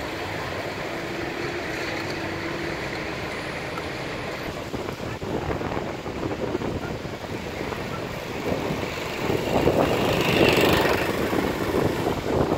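City street traffic on a wet road: car engines running and tyres on wet asphalt. From about two-thirds of the way in, wind buffets the microphone, louder and gusty.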